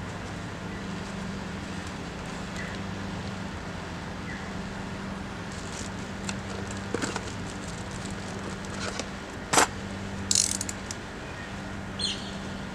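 Hand work on a car's air filter housing: a few scattered clicks and rattles, with one loud sharp snap a little before ten seconds in and a short rattle just after, over a steady low hum.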